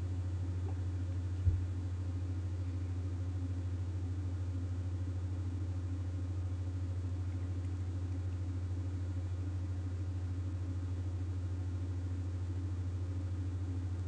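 Steady low hum throughout, with a single low thump about a second and a half in.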